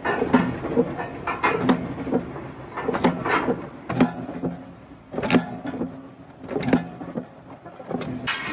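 Steel pieces clanging and banging in a metalworking shop: repeated heavy metal knocks, roughly one every second or so, each with a short ringing tail, over steady workshop clatter.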